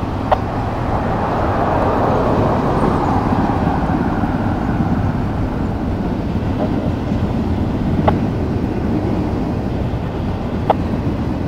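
Double-stack intermodal freight train rolling past, a steady rumble of wheels on rail, with three sharp knocks spread through it.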